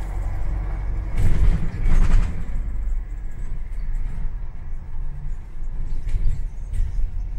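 London bus in motion heard from inside: a steady low engine and road rumble, with a louder rush of noise about a second in that lasts about a second.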